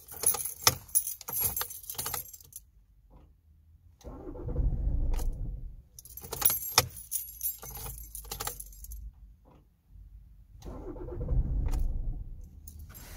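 Keys jangling in the ignition of a 2006 Toyota Avensis 2.0 D-4D diesel, and twice the starter cranks the cold engine for about two seconds without it catching. It is a hard cold start that a new battery, glow plugs and fuel filter have not cured.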